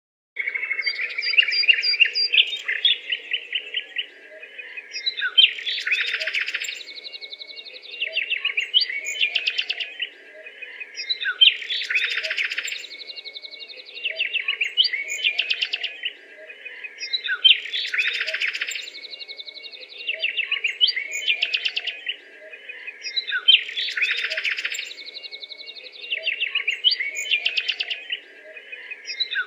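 Birds chirping and trilling in quick, dense bursts, the same short stretch of song recurring about every six seconds as if looped, over a faint steady low hum.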